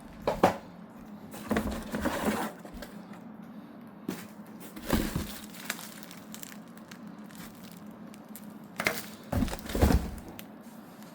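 Packaging being handled: crinkling and rustling with a few sharp knocks, coming in four separate bursts.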